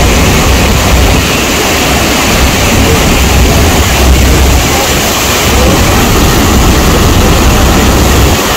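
Loud, steady rush of wind and churning water on the deck of a Hornblower tour boat under way, with heavy wind rumble on the microphone.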